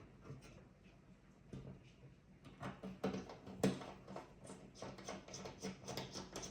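Light clicks and taps of small hardware being handled during a RAM and SSD upgrade on a NAS. The clicks get busier about two and a half seconds in, with one sharper click past the middle, over a faint steady hum.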